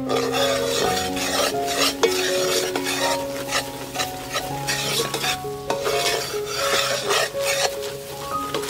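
A metal spoon stirring and scraping around a pot of bubbling, sizzling brown syrup, with background music.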